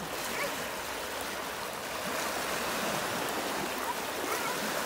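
Small waves breaking and washing in over a rocky shore: a steady rush of surf.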